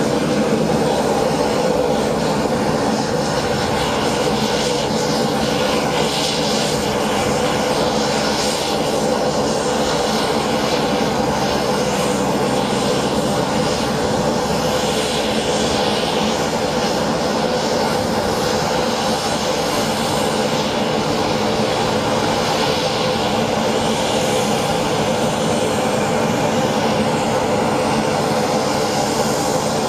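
MV-22 Osprey tiltrotor's two turboshaft engines running steadily on the ground with the proprotors turning: a loud, even turbine drone carrying several held tones, with no change in pitch or level.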